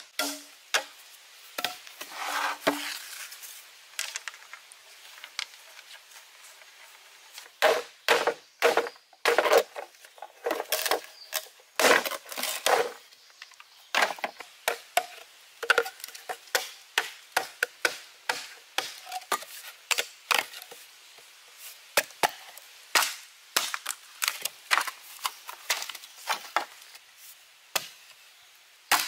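Machete chopping green bamboo poles: many sharp wooden knocks in uneven clusters, with short pauses between runs of blows.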